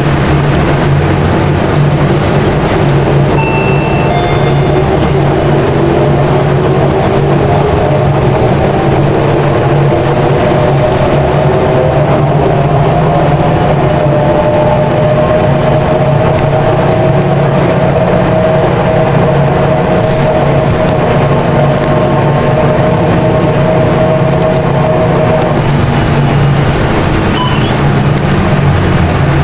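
Volvo B10M Mark IV bus under way, its mid-mounted engine and Voith DIWA 381.4 three-speed automatic gearbox running with a steady low drone, heard from the rear of the cabin. Over it a whirring whine rises in pitch, holds, and stops about 25 seconds in: a whirring sound the bus has had for a year without repair.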